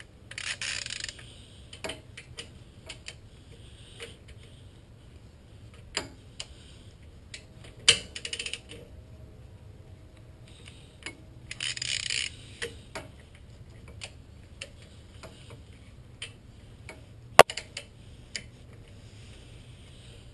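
Torque wrench ratcheting on rear brake caliper bolts, with three short ratcheting bursts about a second each. Scattered light clicks and knocks come between them, and there is one sharp, loud click near the end.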